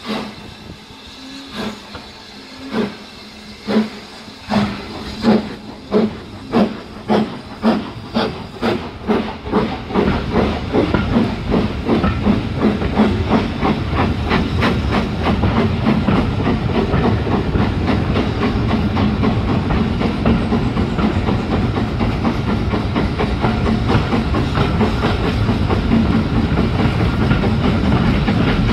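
Steam locomotive pulling away and gathering speed. Its exhaust chuffs start about a second apart and come faster and faster; after about ten seconds they blur into a continuous sound with rail noise that slowly grows louder.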